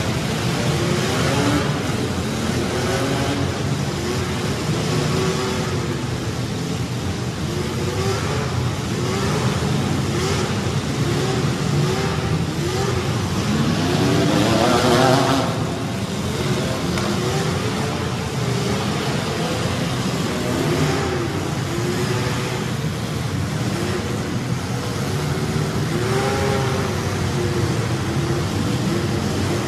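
Several compact demolition-derby cars' engines revving up and down at once, their pitches rising and falling over one another. About fourteen seconds in, one engine revs up louder than the rest.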